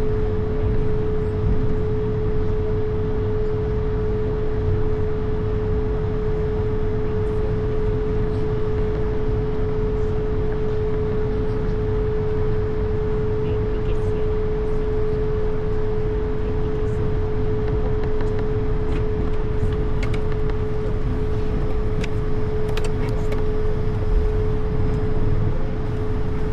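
Steady cockpit noise of an Airbus A220 under way: its Pratt & Whitney geared turbofans and airflow make a constant rush with a steady mid-pitched hum, and a few faint clicks come in the second half.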